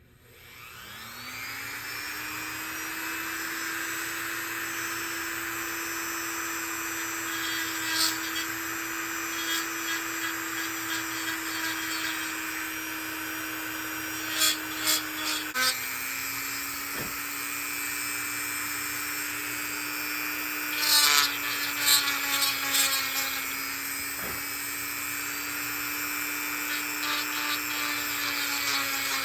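Dremel rotary tool spinning up, then running at a steady high whine while its bit grinds intermittently into the rosewood tote's top, reopening the counterbore for the barrel nut. Its pitch steps down slightly about halfway through.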